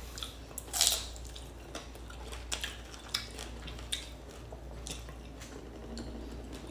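Biting and chewing firm slices of mango: a wet bite about a second in, then scattered smaller mouth smacks and clicks as the fruit is chewed.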